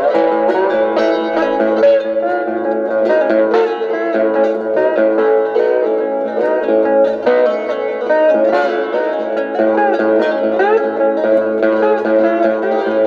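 Cigar box guitar played chicken-pickin' style: quick plucked, twangy notes with a few sliding notes over held lower notes, in a country-blues surf sound.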